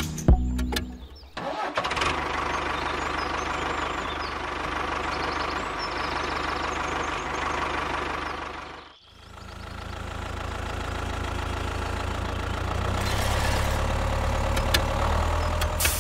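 Engine sound for a mini toy tractor. It starts about a second and a half in and runs steadily, drops out briefly around the middle, then runs on again.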